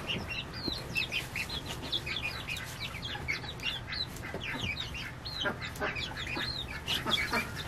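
A small flock of young chickens peeping: a steady stream of short, high chirps, several a second and overlapping.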